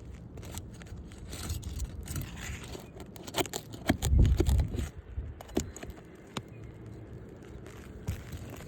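Asphalt roof shingles being scraped and pried loose by hand: a run of irregular scrapes, clicks and tearing noises, with a louder low thud about four seconds in.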